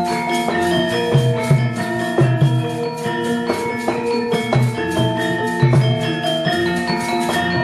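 Javanese gamelan ensemble playing: metal-keyed metallophones struck in a steady pulse, their notes ringing on, over regular drum strokes.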